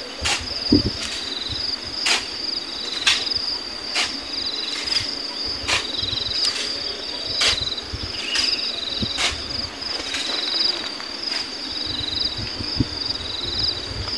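Sand shoveled by hand into a dump truck bed: a sharp shovel stroke with a spray of sand about once a second. Behind it, steady high insect chirring with a repeating pulsed chirp.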